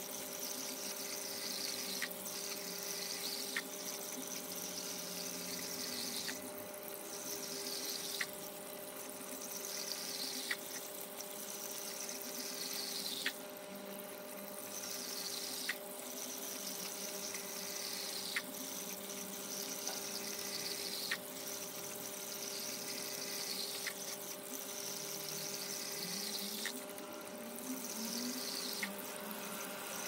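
Small tank's water filter running: a steady motor hum under trickling, splashing water, with a light click about every two to three seconds.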